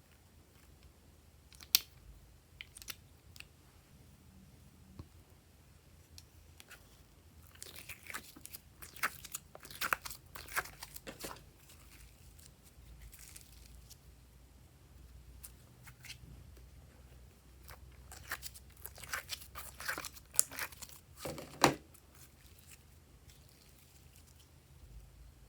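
Slime being handled and mixed with add-ins: a couple of sharp clicks near the start, then two spells of crackling, crunchy sounds, the first about a third of the way in and the second past the middle.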